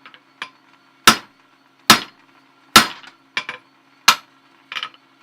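Hammer blows on a blacksmith's round punch, knocking the punched plug out of hot steel through the anvil's pritchel hole: four heavy strikes roughly a second apart, with lighter taps between them and near the end.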